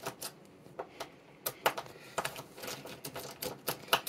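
Irregular small clicks and ticks of a precision screwdriver working the screws out of the back cap of a geared stepper motor, a dozen or so sharp clicks at uneven spacing.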